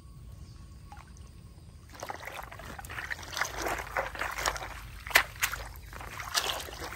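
Water being sloshed and splashed in irregular bursts, starting about two seconds in, with sharp clicks mixed through it.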